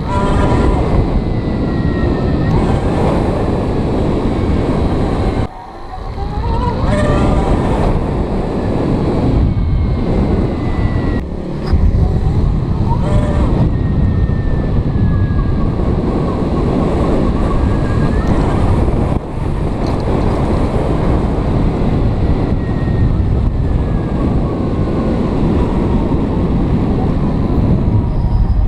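Zero electric motorcycle being ridden, wind rushing over the microphone. Through the wind the electric motor's whine rises and falls in pitch as the bike speeds up and slows down. The sound breaks off abruptly a few times.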